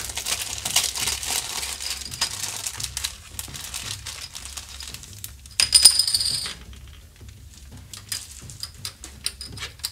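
Clear plastic bag crinkling as a plastic miniature sprue is unwrapped, then sharp clicks and clatter of the hard plastic sprue and round plastic bases being handled and set down, with the loudest rattle about six seconds in.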